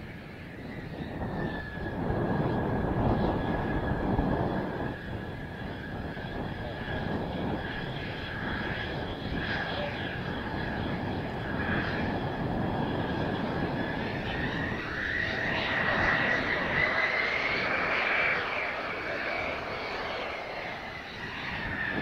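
Mitsubishi F-2's single F110 turbofan at taxi power, a steady high whine that rises in pitch for a few seconds about two-thirds through and then settles again. Gusts of wind buffet the microphone, loudest in the first few seconds.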